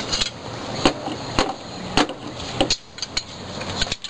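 Sharp plastic-and-metal clicks and knocks, about half a dozen roughly half a second apart, from water pump pliers gripping and turning a plastic pipe union at the front of a pool pump as it is tightened.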